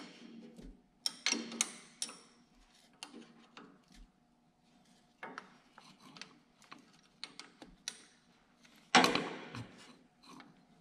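Hand tools and metal ignition parts clicking, tapping and clinking as the ignition coil is unbolted from the distributor of an 8N Ford tractor, with a louder clatter lasting about a second near the end.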